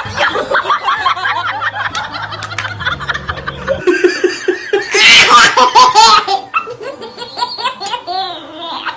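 Laughter: a person laughing in the first few seconds, then from about four seconds in a baby laughing hard in repeated fits, loudest a second or two after it starts.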